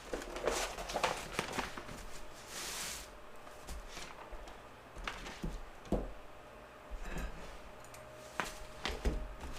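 Hand-work handling noises in a small room: scattered light knocks and clicks, with a brief rustle about two and a half seconds in.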